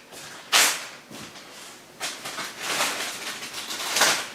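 Refrigerator being opened and rummaged through: a few short bursts of rustling and knocking, the sharpest about half a second in and another near the end.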